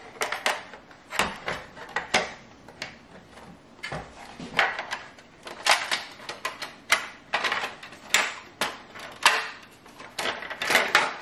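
Plastic parts of a Roomba 614 robot vacuum being handled and pulled apart as its bumper comes off: many irregular sharp clicks and knocks of hard plastic.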